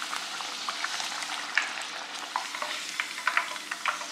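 Corn tortilla deep-frying in very hot oil in a skillet: a steady sizzle with frequent crackling pops, which grow busier about halfway through.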